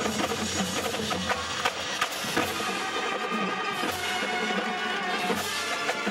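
High school marching band playing: brass and winds holding sustained chords over a drumline of marching drums and crash cymbals striking repeatedly.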